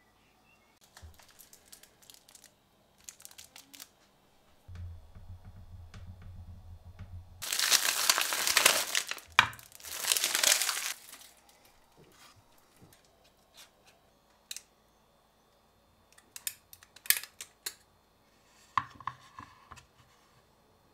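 Paper packaging being torn and crumpled, a loud crackly rustle lasting a few seconds, followed later by a few sharp clicks as the sardine tin's ring-pull lid is pulled open.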